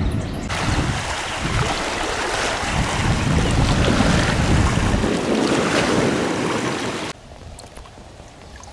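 Wind buffeting the camera microphone: a loud, steady rush with a low rumble that cuts off suddenly about seven seconds in.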